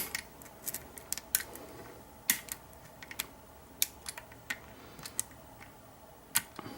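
Scattered, irregular small metallic clicks and ticks: a lock pick and tension tool working inside a Kwikset SmartKey deadbolt as the picker feels for the binding slider. The sharpest clicks come about two seconds in and again near the end.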